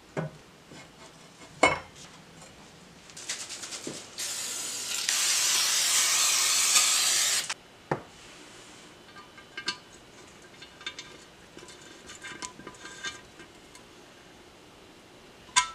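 Workshop metalwork on a bare aluminium motorcycle engine casting: a sharp hammer-like strike on a steel driver, then a loud steady hiss of about three seconds. After that come light metallic clinks of small steel pins being handled and set into the casting, and another sharp knock at the end.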